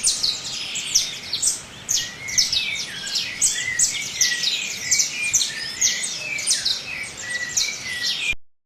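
A flock of small garden birds chirping and twittering at once, a dense, unbroken chatter of short high calls. It cuts off suddenly near the end.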